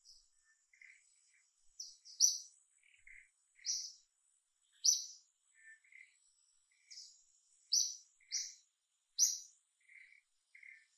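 Songbird chirping: short, high, bright chirps at irregular intervals, about a dozen, with softer, lower chirps in between. A faint steady high tone runs behind.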